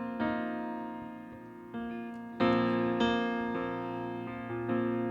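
Keyboard playing slow, sustained chords in B flat, a new chord struck every second or so, as the introduction to the next worship song.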